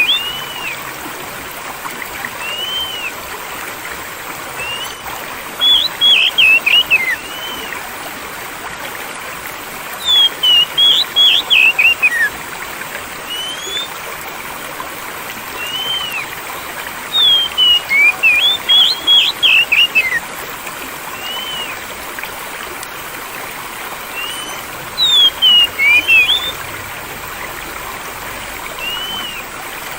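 Steadily flowing stream water with a songbird singing over it: loud bursts of quick whistled notes about every six to seven seconds, and single rising-and-falling whistles between them. It is a looped audio-therapy track meant to calm a stressed caged songbird.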